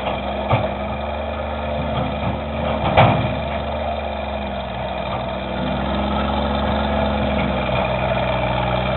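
Engine of a small Case loader running steadily, with one sharp clank about three seconds in. The engine picks up slightly about halfway through.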